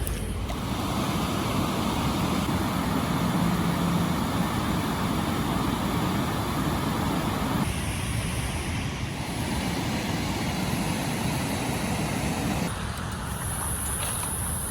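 Steady rush of water pouring through a spillway. Its tone shifts abruptly about halfway through and again near the end.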